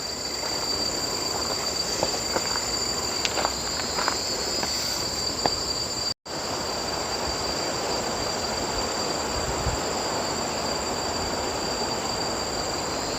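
Steady rush of a bicycle ride, tyres and wind, with insects buzzing in a high steady tone throughout. The sound drops out completely for a moment about six seconds in.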